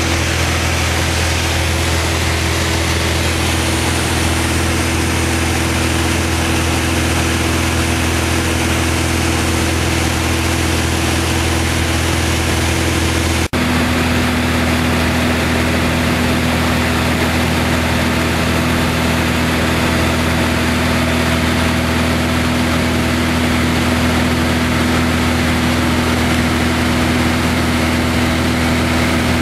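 Steady drone of a Piper Turbo Arrow's turbocharged Continental six-cylinder engine and propeller in flight, heard inside the cabin. There is a short break about halfway through, after which the hum sits at a slightly different pitch.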